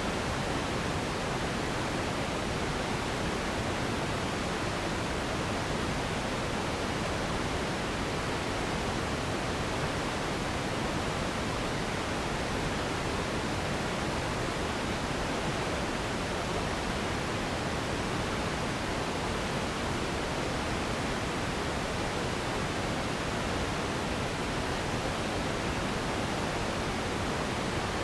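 Steady, unchanging pink-noise-like hiss, a relaxation and sleep noise track, spread evenly from deep to high pitches and thinning out at the very top.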